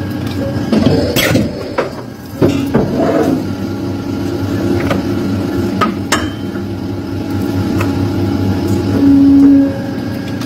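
Polar hydraulic guillotine paper cutter running with a steady hum, with a louder tone swelling for about a second near the end as the clamp and blade come down on a stack of magazines. A few sharp knocks come earlier, about a second in and again about six seconds in, as the paper stack is pushed into place against the back gauge.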